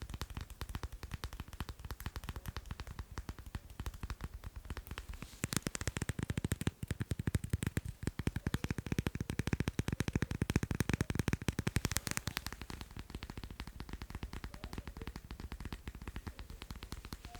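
Fast tapping on macarons: a rapid, continuous stream of light taps, growing louder and fuller from about five seconds in until about twelve seconds in.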